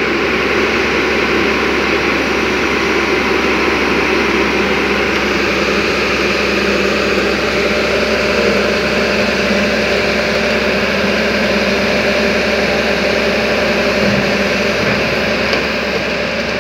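JCB JS205 crawler excavator's diesel engine running steadily as the machine travels slowly on its tracks.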